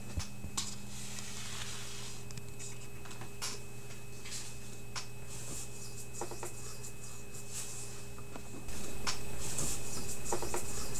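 Room tone with a steady electrical hum and scattered faint clicks and ticks. The background noise steps up louder about nine seconds in.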